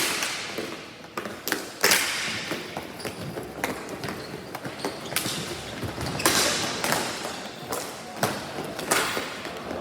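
Ball hockey play: sharp knocks and thuds at an irregular pace, about ten in all, from sticks striking the ball and from the ball and players hitting the rink boards. Some of the knocks ring on briefly, as a board rattles.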